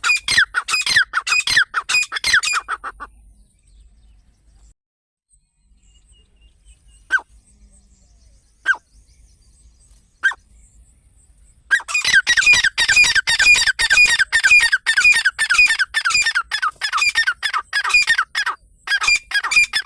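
Partridge (teetar) calling: a rapid chattering series of sharp, falling notes, about four a second, breaks off after about three seconds, three single notes follow about a second and a half apart, then a long rapid series starts again about twelve seconds in, with a short break near the end.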